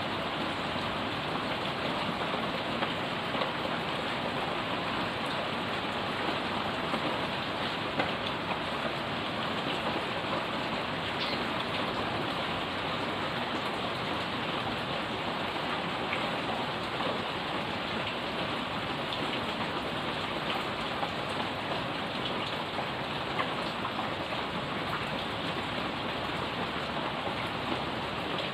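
Heavy rain falling steadily on puddled pavement and plant leaves, a constant even patter with scattered sharper drop ticks.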